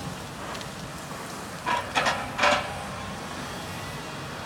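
Log loader's diesel engine running steadily in the background, with three short, loud metal-on-metal sounds from the loader's grapple and boom at work about two seconds in.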